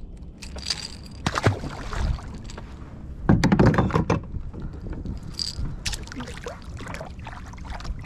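Knocks, clicks and handling noise in a fishing kayak over a steady low rumble of wind on the microphone, with a louder rumbling burst a little over three seconds in.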